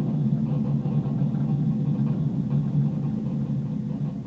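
Steady low rumble of a moving train, running evenly with no break.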